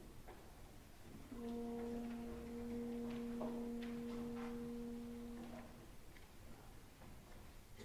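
A single held note from the opera's orchestra, steady in pitch, starting about a second in and lasting about four and a half seconds. Faint clicks and stage noise from the performance surround it.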